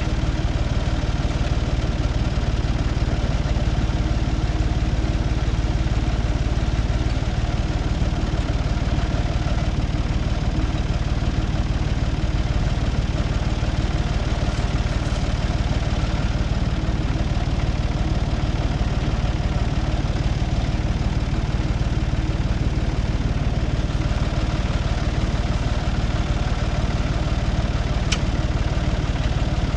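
Tractor diesel engine running at a steady speed, with no revving or change in load.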